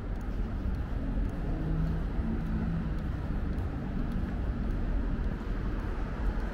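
Street traffic: a vehicle engine hum is strongest in the middle, over a steady low rumble.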